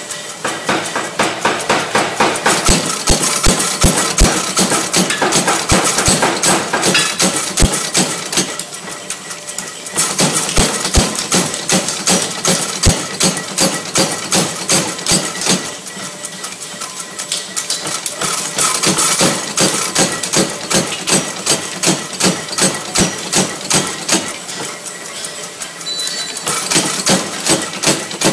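Mechanical power hammer striking hot steel in a fast, steady run of blows, several a second, while forging a set down. The blows ease off and pick up again several times.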